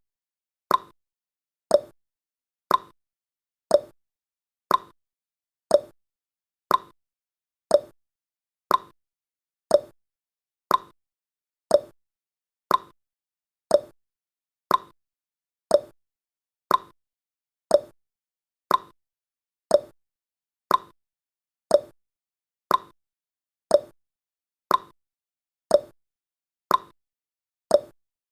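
Countdown timer's ticking sound effect: short clock-like ticks about once a second, alternating between a lower and a higher tick like a tick-tock.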